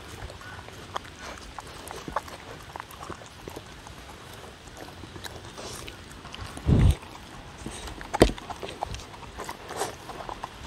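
Two dogs eating from wooden bowls close to a microphone: scattered small clicks of chewing, licking and muzzles knocking the bowls, with a low thump about two-thirds of the way through and a sharp knock a second later.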